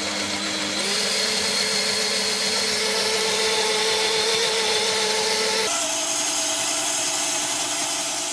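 Homtiky stainless-steel countertop blender running at speed, blending frozen berries into oat milk. Its steady motor whine steps up in pitch about a second in and shifts again about two-thirds of the way through.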